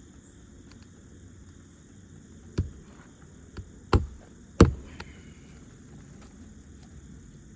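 Nails being driven into a replacement asphalt shingle on a roof: three sharp strikes about two and a half, four and four and a half seconds in, with a lighter tap between the first two.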